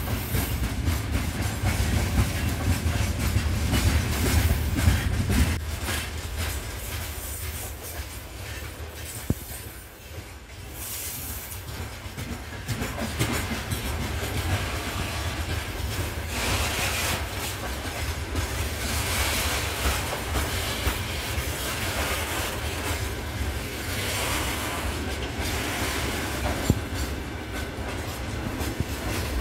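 Freight train of open gondola wagons rolling past at close range: steady wheel-on-rail noise with repeated clacks as the wheelsets cross rail joints. The low rumble is heavier in the first five seconds or so.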